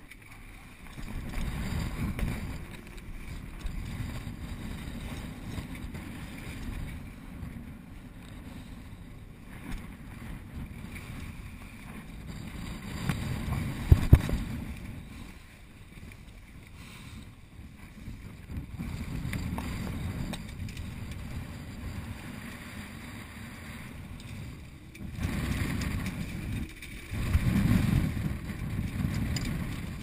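Wind buffeting the microphone on a sailing yacht's deck, swelling and easing in gusts, with the rustle and flap of sail cloth being gathered in by hand. Two sharp knocks about fourteen seconds in are the loudest moment.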